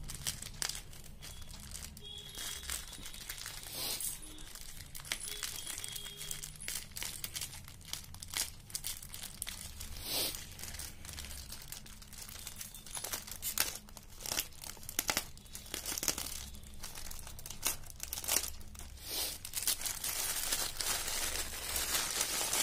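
Plastic courier mailer bag crinkling in the hands as it is handled and pulled open, irregular crackles throughout, a bit louder and busier near the end.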